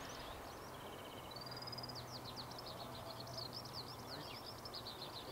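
Eurasian skylark singing: a rapid, unbroken stream of high chirping and trilling notes over a faint low background hum.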